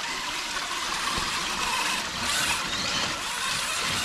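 Steady rush of shallow creek water running over rock ledges.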